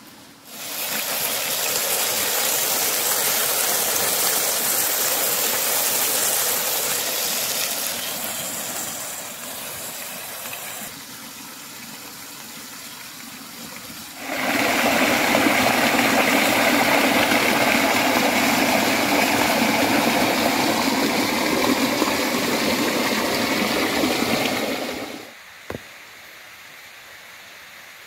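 Meat sizzling loudly in a hot frying pan on a portable gas camp stove. The sizzle starts suddenly, eases off, then comes back full and loud about fourteen seconds in, and cuts off abruptly near the end.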